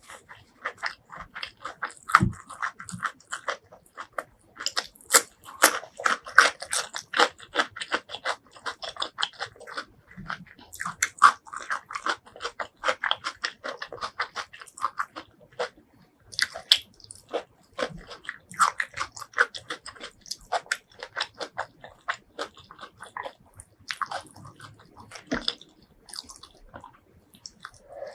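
Close-miked eating: a person chewing and biting food with wet smacking and crunching, in quick runs of mouth clicks that pause briefly now and then.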